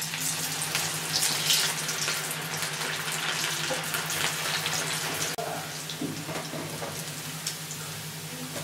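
Gobi 65 (besan- and corn-flour-coated cauliflower) deep-frying in hot oil: a dense sizzling and crackling, loudest about a second in as the pieces drop into the oil. A steady low hum runs underneath.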